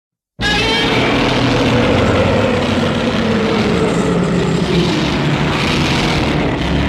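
Monster growl sound effect: a loud, deep, continuous growl that starts abruptly about half a second in and keeps going without a break.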